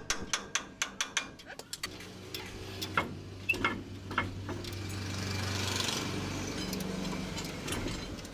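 Quick metallic clicks of a spanner working a nut on a truck leaf-spring shackle. From about two seconds in, an engine hum swells for several seconds and then fades, louder than the clicks.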